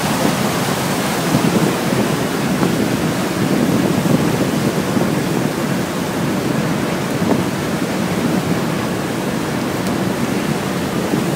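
Steady rush of water churned along the hull of a moving passenger ferry, mixed with wind on the microphone.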